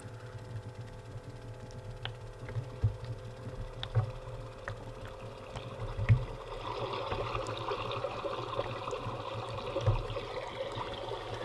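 A humidifier's built-in speaker playing a recorded rain sound: an even hiss that comes in about six and a half seconds in, over a low steady hum from the running humidifier. A few sharp clicks and knocks come before the hiss.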